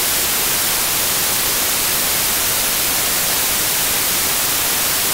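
Loud, steady white-noise static hiss, the sound of a snowy, untuned video screen, unchanging throughout.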